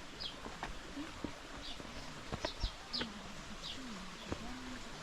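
A dove cooing low and repeatedly in the second half, with another small bird giving short, high, falling chirps several times. A few sharp clicks are also heard.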